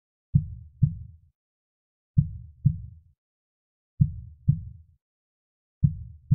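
Soft, low heartbeat: slow paired lub-dub thumps, four double beats about two seconds apart, each thump dying away quickly into silence.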